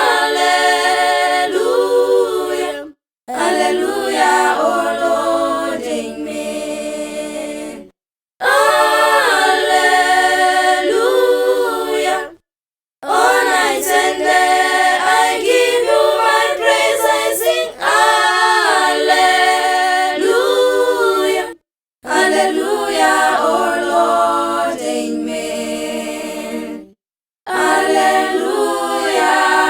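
A small vocal group singing a hymn a cappella in harmony, in phrases of a few seconds each broken by brief pauses.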